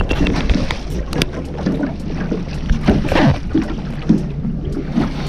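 Small fishing boat under way: a steady low outboard engine hum with wind and water noise, and scattered sharp knocks.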